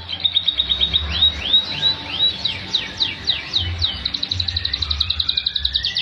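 Domestic canary singing: a fast trill, then a few slower arching whistled notes and a run of quick falling sweeps, leading into a long rapid trill in the second half.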